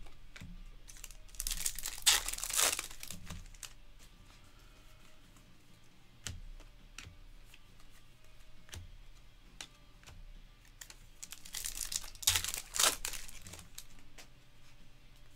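Baseball trading cards being shuffled and slid against one another in the hands. Two bursts of papery rustling and crinkling come about 1.5 s in and about 12 s in, with scattered light clicks of card edges between them.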